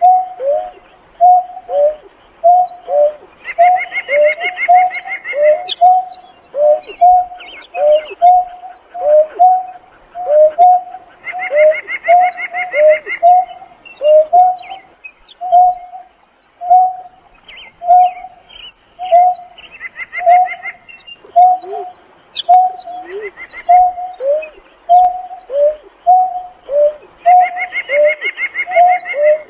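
Greater painted-snipe calling its flock: a long, even series of short, low hooting notes, about two a second, each dropping a little in pitch at its end. A faster, higher-pitched trill comes in four times over the hoots.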